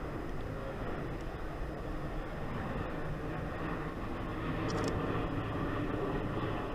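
Steady city street hum of distant traffic, a low engine rumble that swells a little about halfway through.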